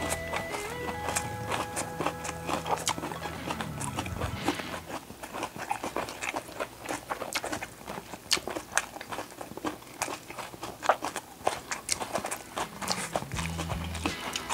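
Close-up eating sounds: people chewing sashimi and rice, with many short, crisp mouth clicks. Light background music fades out about four seconds in and comes back near the end.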